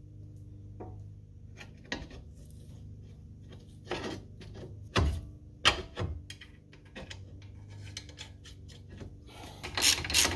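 Metal suspension parts knocking and scraping as the upper ball joint stud is seated in the steering knuckle and its nut threaded on by hand. Near the end a ratchet wrench starts clicking rapidly as it runs the nut down.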